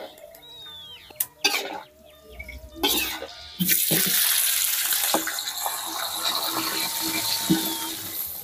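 A spatula clinks and scrapes against an aluminium wok. About three and a half seconds in, a loud, steady sizzle starts as salted sepat fish fries in hot oil.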